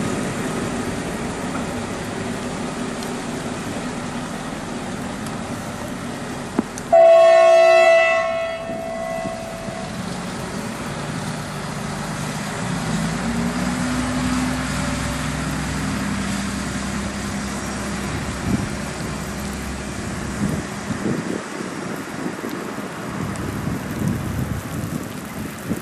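Jenbacher-built diesel railcar pulling away, its engine running throughout. About a quarter of the way in it sounds one horn blast lasting about a second, the loudest sound here.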